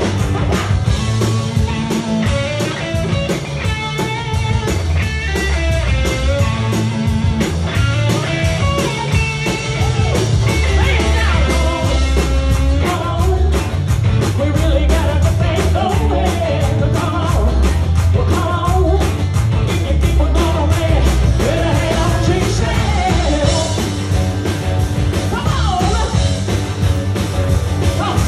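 Live rock band playing with a woman singing lead, over drums, bass and guitar with a steady beat, recorded from the audience.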